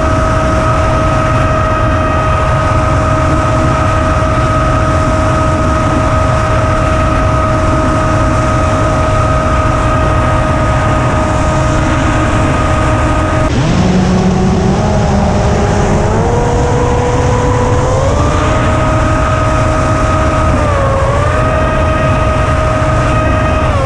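Electric motor and propeller of an FPV flying wing whining at a steady pitch over heavy wind rush, heard from a camera on board. About halfway through the pitch drops sharply as the throttle is pulled back, then climbs again in several steps, with a brief dip near the end.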